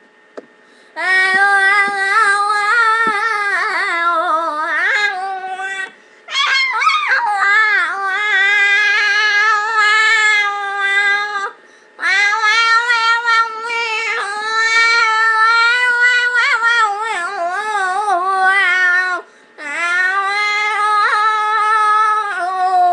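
A high-pitched voice singing in long, drawn-out wailing notes with a wavering pitch, in four phrases broken by short pauses for breath.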